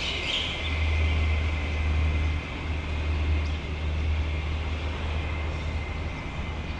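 Steady low rumble of traffic on the elevated road viaducts overhead, with a steady high hiss above it.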